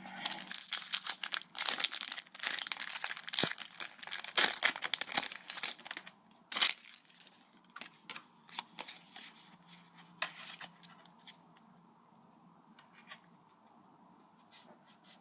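Foil booster pack wrapper being torn open and crinkled, dense crackling for about six seconds, then sparser crackles and taps as the cards are handled.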